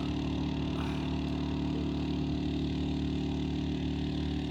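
An engine running steadily at constant speed: an even, low drone that neither revs up nor slows.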